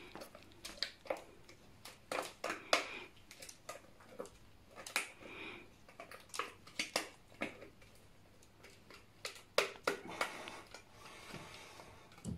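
Spatula scraping against a stainless-steel mixing bowl as thick béchamel croquette dough is scraped out and drops into a glass baking dish: a string of irregular short scrapes, clicks and soft plops.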